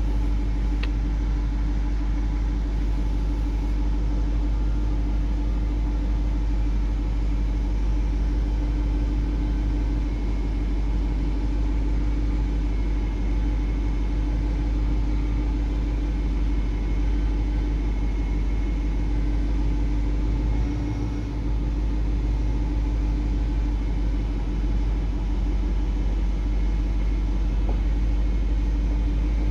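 BMW E60/E63 running at a standstill: a steady low rumble with a constant hum throughout.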